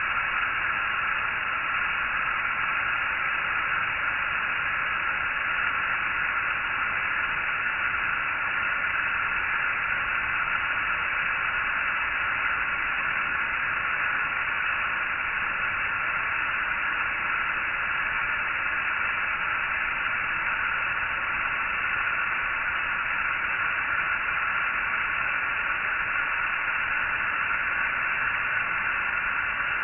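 Steady static-like hiss, loudest in the upper-middle range and cut off sharply above, unchanging throughout.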